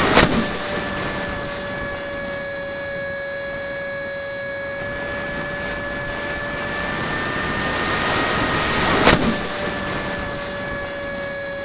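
Onboard audio of an RC model plane in flight: the motor and propeller whine steadily, with wind hissing over the camera's microphone. Two sharp knocks cut across it, one at the very start and one about nine seconds in.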